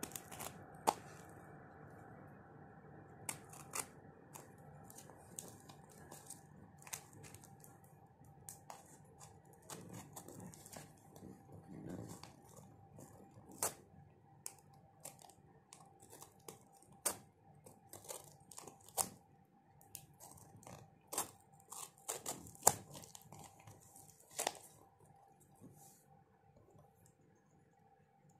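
Hobby knife slicing and scraping through plastic packing tape and the cardboard of a small parcel. Irregular sharp clicks and crackles come as the blade catches and the tape tears.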